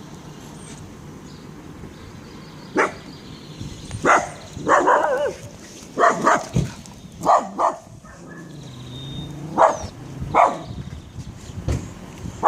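Small Maltese dog barking repeatedly: a string of short, sharp yaps at irregular intervals, some in quick pairs.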